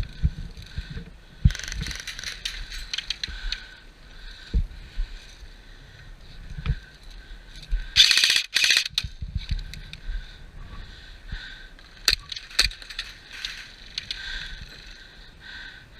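Airsoft gun firing a rapid burst of about a second, halfway through, amid scattered single clicks and low thumps.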